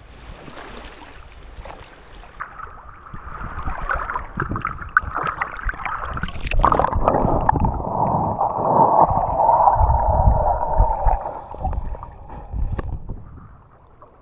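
Sea water sloshing and gurgling around a handheld camera in shallow surf. About halfway through it turns muffled and louder as the camera goes underwater, then fades near the end.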